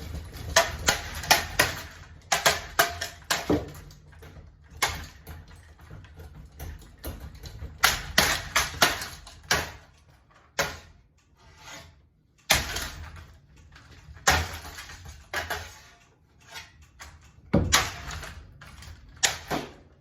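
A battered ceiling fan clattering: irregular sharp knocks and rattles in clusters, over a low hum.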